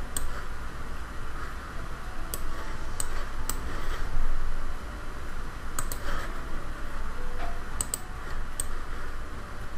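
Computer mouse clicks: about ten sharp, scattered clicks, some in quick pairs, over a steady hiss.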